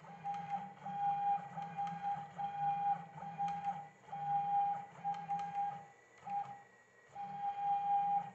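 CNC router's Z-axis stepper motor driving the threaded rod up and down, a steady high whine that starts and stops with each move. There are short breaks between moves and longer pauses twice.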